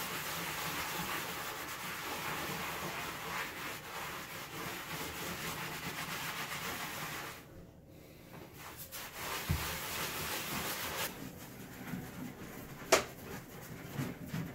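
A cloth rubbing over ceramic tile to buff off grout haze: a steady scrubbing hiss that breaks off briefly about eight seconds in and then goes on in shorter, uneven strokes. A single sharp, brief sound near the end is the loudest moment.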